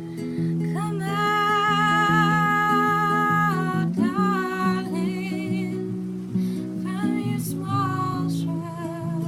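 Acoustic guitar playing steadily under a woman singing. She holds one long note with vibrato for about three seconds, then sings a few shorter notes.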